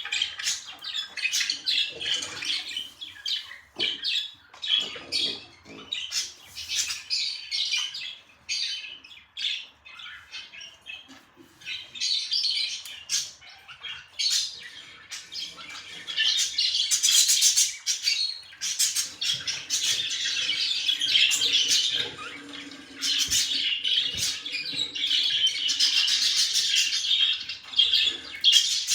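Pet budgerigars (budgies) chirping and chattering in quick, continuous warbles and squawks. The chatter grows busier and louder about halfway through.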